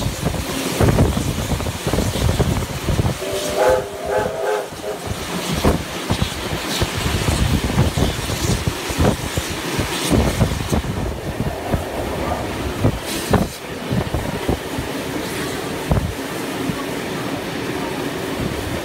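Steam trains running side by side, with steady rolling noise and wheel clatter on the rails. About three seconds in, a steam locomotive's chime whistle sounds a quick series of short toots, and a fainter, longer whistle is heard later on.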